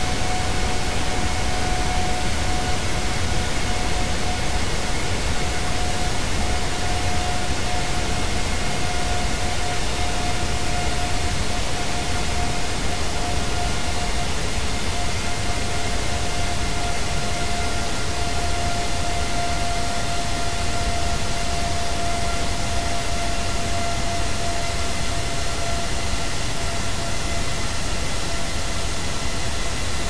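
GEnx turbofan jet engine decelerating: a steady rush of air with a whining fan tone and its overtones, falling slowly in pitch as the 18-blade carbon-fibre fan spools down.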